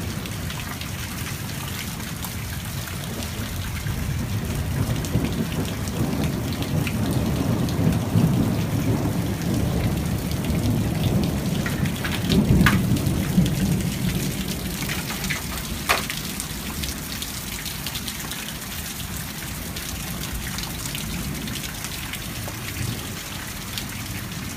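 Steady heavy rain falling, with a low rumble of thunder that builds through the middle and fades again. A few sharp taps stand out, the clearest about sixteen seconds in.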